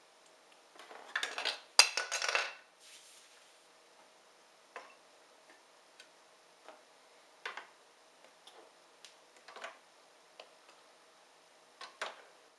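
Small plastic toy furniture pieces being handled and set down in a plastic toy play house: a brief burst of clattering about two seconds in, then scattered single light clicks and taps.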